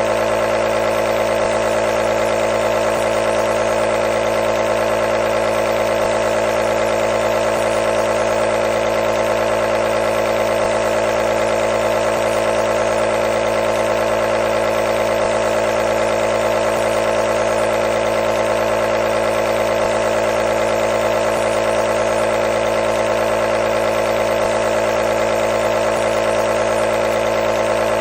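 Compressor nebulizer running: a steady mechanical hum made of many evenly spaced tones, strongest in the middle, with no change in pitch or level.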